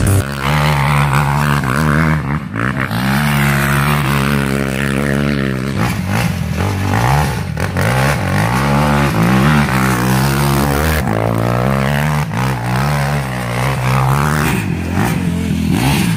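Quad (ATV) engine revving up and down again and again as the rider spins and slides it through loose sand.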